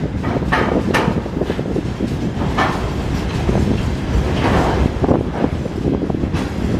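Freight train wagons loaded with logs rolling past, wheels rumbling on the rails with frequent irregular metallic knocks and clanks.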